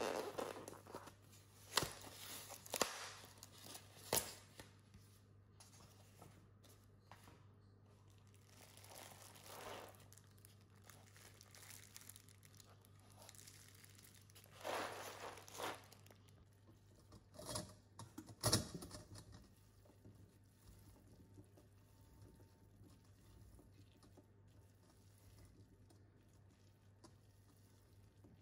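A styrofoam shipping box being handled and opened and a plastic-wrapped pack of raw salmon roe lifted out: scattered sharp knocks and scrapes of the foam and crinkling of plastic, under a faint steady low hum. The handling sounds die away after about twenty seconds.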